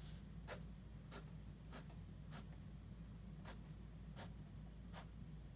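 Short, faint strokes of a drawing tool on paper, roughly one every half second to second, with small pauses between.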